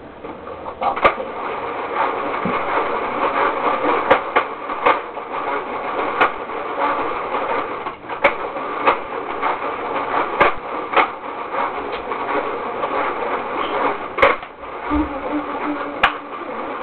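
Toy DQ Blizzard Maker churning ice cream: a steady mechanical whirring and grinding with irregular sharp clicks, while the mix is not yet creamy.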